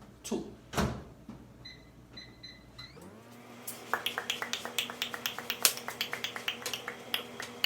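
Microwave oven: a few short keypad beeps as it is set, then it starts running with a steady hum. About a second later, fast sharp pops, several a second, begin as the microwave pork rinds start popping in the bag.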